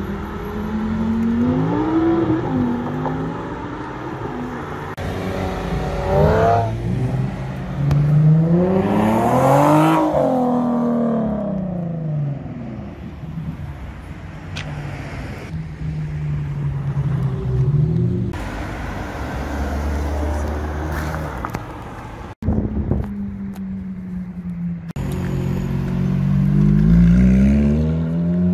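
Supercar engines accelerating hard one after another, the pitch sweeping up through the revs several times, with lower steady engine and traffic noise between the pulls. The last rising rev, near the end, comes from a red Ferrari convertible pulling away. A sharp break about 22 seconds in.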